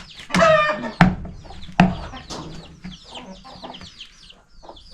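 Domestic chickens clucking, with a steady stream of short, high, falling cheeps and one louder call early on. Two sharp knocks come about one and two seconds in.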